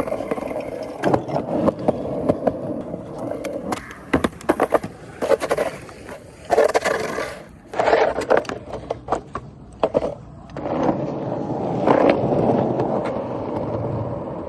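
Skateboard wheels rolling over pavement in a rumbling run, broken by brief pauses, with sharp clacks and knocks from the board.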